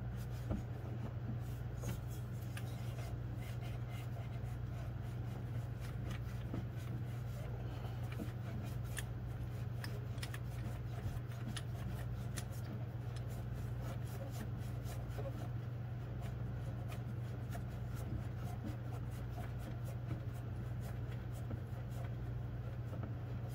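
Faint, scattered small metal clicks and rubbing as a hand works the lower mounting bolt of a belt tensioner into place by hand, over a steady low hum.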